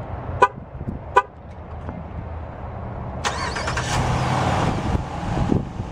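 Two short horn chirps as the remote start is triggered. About three seconds in, the 2011 Jeep Grand Cherokee's 5.7-litre HEMI V8 cranks and fires, flaring up loud on start-up before easing back toward idle.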